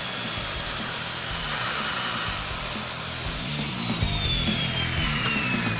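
Circular saw running through a crosscut in a board, its high whine steady at first and then slowly falling in pitch over the last few seconds.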